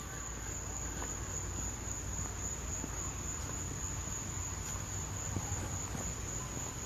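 Steady night insect chorus: a continuous high-pitched trill, over a low steady rumble.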